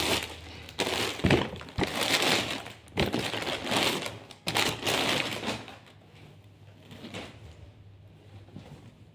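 Plastic packaging crinkling and rustling in irregular bursts as a dress is pulled out of its plastic mailer bag and clear plastic wrap, with a few sharp crackles; it dies down to a faint rustle of fabric after about six seconds.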